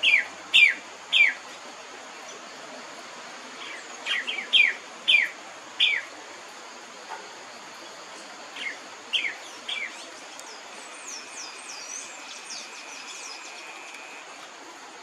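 Bird calls: sharp, downward-slurred notes in quick groups of three to five, repeated several times. Near the end a faster run of thin, high notes follows.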